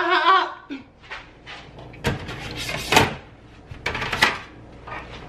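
A man's voice in a drawn-out high-pitched shout that ends about half a second in, followed by a string of separate knocks and clatters from kitchen cabinets and drawers.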